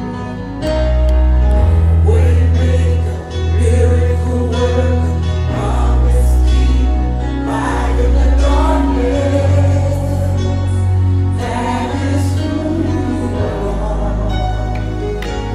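Live gospel worship song: a woman's lead vocal, joined by backing singers, over low held bass chords that change every second or two.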